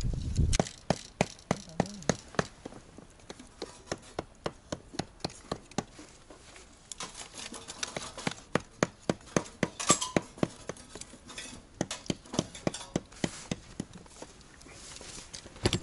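Firewood being chopped into kindling: a fast run of sharp wooden knocks, about three a second, that pauses briefly near the middle and starts again.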